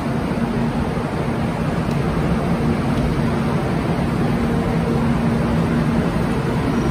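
Steady street traffic noise with a deep rumble of wind on the microphone, and a steady engine hum through the middle.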